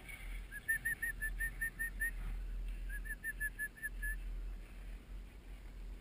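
Short whistled notes repeated quickly, about five a second, in two runs of a second or so each with a short gap between, over a low steady rumble.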